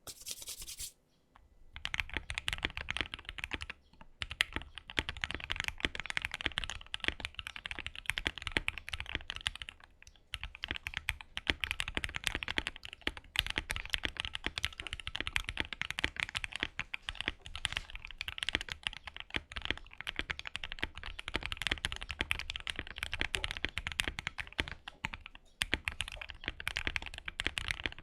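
Continuous fast typing on a mechanical keyboard fitted with lubed Green Snake linear switches, a deep, thocky sound profile. Typing starts about a second and a half in and runs with short pauses three times.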